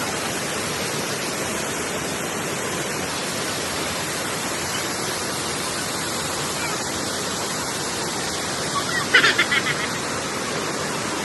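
Small waterfall on a mountain stream, water pouring and splashing in a steady rush. About nine seconds in, a brief high-pitched sound, likely a voice, rises above it.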